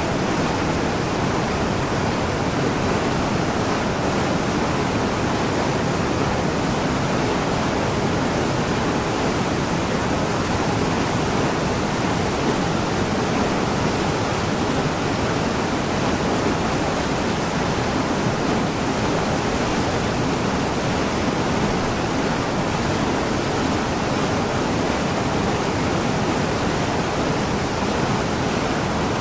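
Rocky mountain stream and small waterfall rushing over boulders: a steady, unbroken rush of water that neither rises nor falls.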